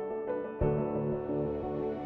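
Instrumental background music with sustained keyboard chords; about half a second in, a new chord with a low bass comes in and the music gets louder.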